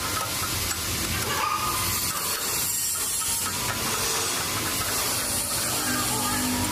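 Metal lathe turning a workpiece: a steady, even cutting noise over the low hum of the machine.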